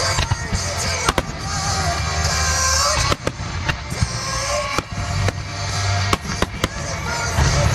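Aerial firework shells bursting in a rapid-fire starmine barrage, about a dozen sharp bangs at uneven intervals over a loud pop-rock song with a heavy bass line.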